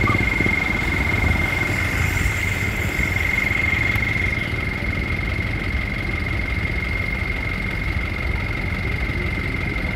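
Engines of queued trucks idling, a low steady rumble, with a steady high-pitched whine over it.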